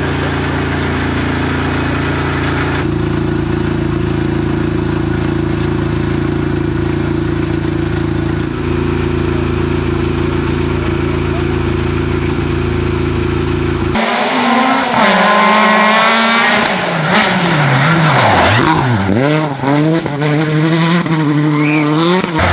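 A rally car's engine idles steadily. About two-thirds of the way in, a rally car's engine takes over, revving hard up and down through gear changes as the car drives past.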